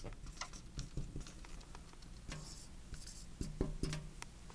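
Faint handling noise: scattered small clicks and light scratching rustles.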